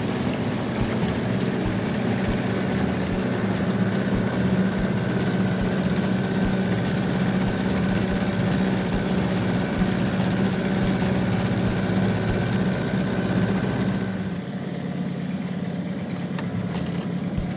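Boat motor running steadily with the boat under way, over a hiss of water and wind. About fourteen seconds in it drops a little in level and the hiss thins out, while the motor's low drone goes on.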